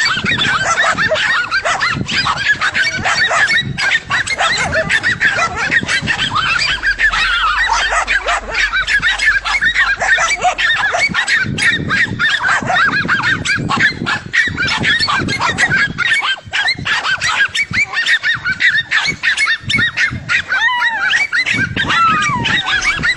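A large group of fowl calling at once, a dense, continuous chorus of many short overlapping calls.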